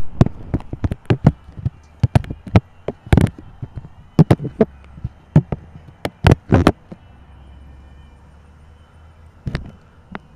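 Camera handling noise: irregular sharp clicks and knocks from the camera being moved on its mount. They come thick for the first seven seconds, fall away to a faint steady hiss, and start again briefly near the end.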